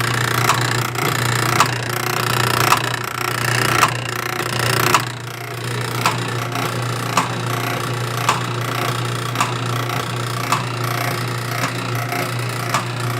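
Old Wanke washing machine with no drive belt running: a steady motor hum with a sharp knock about once a second.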